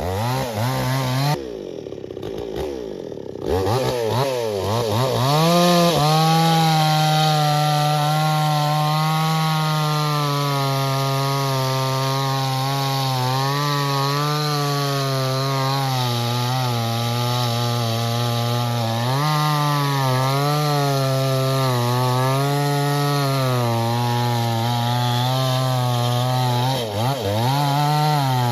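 Two-stroke chainsaw cutting a coconut palm trunk. It runs low briefly at first, is throttled up about four seconds in, and then runs under load for a long stretch, its engine speed sagging and recovering as it bites into the wood. Near the end the revs drop away.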